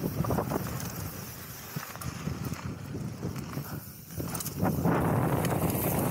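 Downhill mountain bike ridden fast on a dry dirt trail: tyres rumbling over the dirt, with quick knocks and rattles from the bike over bumps. It goes quieter through the middle and loud again from about the fifth second.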